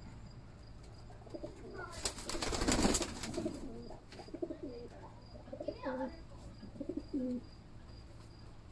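Kamagar pigeons cooing: a run of short, low coos from about a second in until near the end. About two seconds in there is a loud rush of rustling noise lasting about a second, the loudest thing heard.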